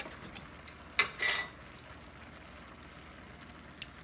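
A skillet of meat and vegetables sizzling softly under a layer of tomato sauce. About a second in comes a sharp click and a short scrape as a glass sauce jar is handled.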